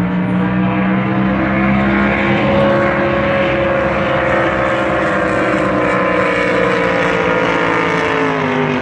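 Drag racing boat's engine at full throttle: a loud, steady engine note whose pitch rises slightly, then slowly sinks as the boat runs down the course. The sound drops away sharply near the end.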